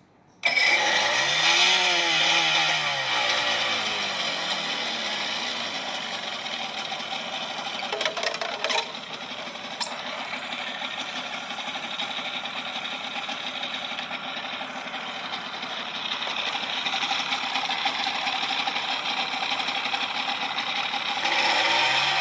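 Tohatsu 25 hp outboard motor running, its pitch rising and falling over the first few seconds, then running steadily. A few short knocks come about eight to ten seconds in, and the engine revs up again near the end.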